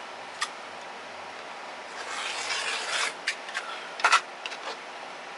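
Rotary cutter slicing through the layers of a quilt block (pieced strips, batting and backing) along an acrylic ruler on a cutting mat: a rasping cut lasting about a second, about two seconds in. Several sharp clicks and knocks follow, the loudest about four seconds in.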